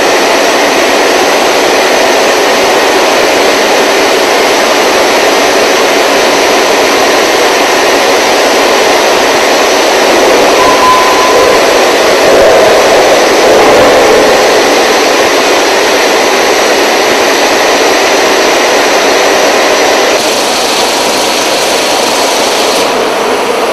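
Wire rod hot rolling mill running: a loud, steady industrial noise of the roll stands working hot steel bar, with cooling-water spray hissing. It swells about halfway through and changes abruptly about twenty seconds in.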